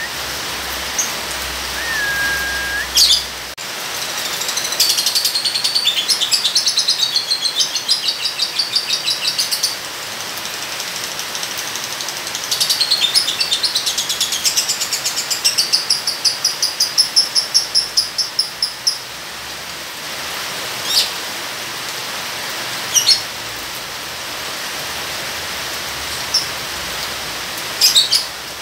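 A lovebird chattering in two long runs of fast repeated high notes, each lasting several seconds: the long 'ngekek' trill. It also gives a few short sharp chirps and a brief whistle, over steady rain.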